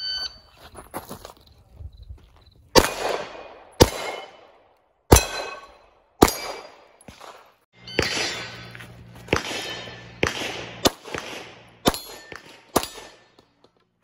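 About ten sharp pistol shots and metallic clangs of steel targets, irregularly spaced about a second apart, each ringing out for nearly a second.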